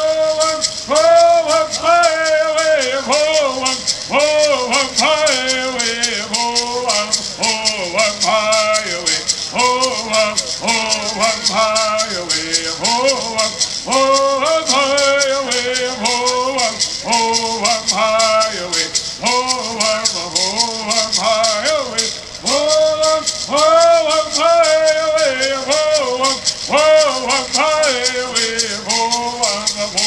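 Kumeyaay bird songs: a group of singers chanting in repeated rising and falling phrases, each singer keeping time by shaking a gourd rattle in a steady, even rhythm.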